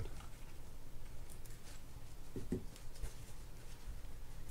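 Faint rustling of a paper towel and light clicks of small metal spinning-reel parts being handled, as grease is wiped off the reel's crosswind gear.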